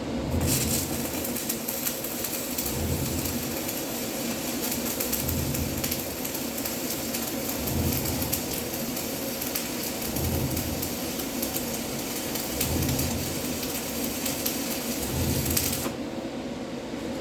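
Stick (shielded metal arc) welding arc crackling and sizzling steadily. The arc is struck about half a second in and broken about a second before the end.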